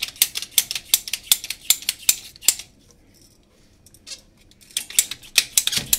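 Plastic pipe cutter cutting through white PEX water pipe. The cutter clicks quickly, about five a second, for roughly two and a half seconds, pauses, then clicks again near the end.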